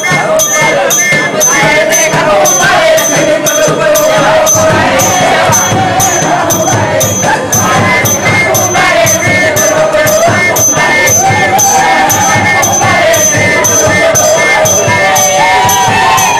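Lively group singing over a steady jingling percussion beat, about two and a half beats a second.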